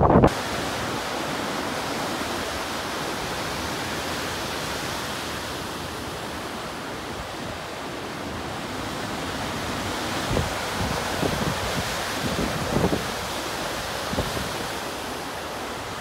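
Lake Superior surf driven by storm winds, breaking and washing ashore in a steady rushing hiss. In the second half, gusts of wind buffet the microphone now and then.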